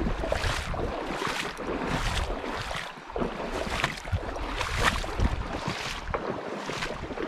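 Wind buffeting the microphone in irregular gusts, over the rush of a shallow river running across rocks.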